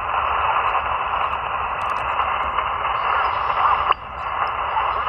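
Steady hiss of band noise from an Elecraft KX2 amateur radio transceiver's speaker, receiving on single sideband; it dips briefly about four seconds in.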